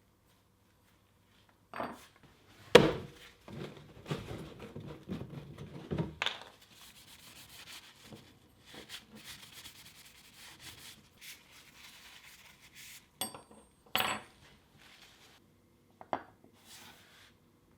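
Scattered knocks and clinks of small metal tools being handled and set down on a work surface, with rubbing and scraping between them. One sharp knock about three seconds in is the loudest.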